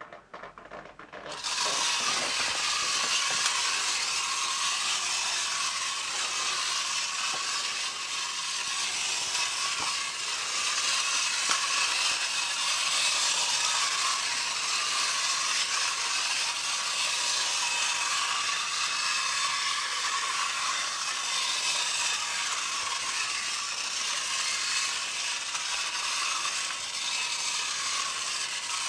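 Clockwork spring motor and gear train of a 1999 Schylling tinplate railroad hand car running, a steady mechanical whirring as the wound-up toy drives along. It starts about a second in.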